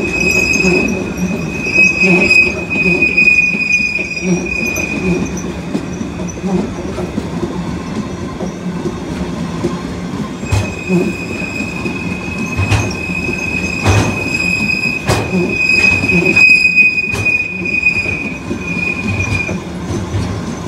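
Empty livestock train of flat wagons with aluminium cattle containers rolling past, its wheels squealing in one high steady tone for the first five seconds and again from about ten seconds in, over the constant low rumble of the wagons. Several sharp clacks come from the wheels over rail joints in the second half.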